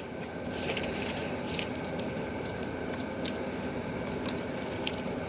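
Bible pages rustling as they are turned to find a passage, with a bird's short high chirps repeating every second or so over a steady outdoor background hiss.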